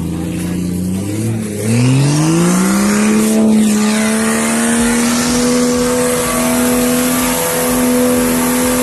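Off-road 4x4's engine revving. It rises steeply about two seconds in, then is held steadily at high revs.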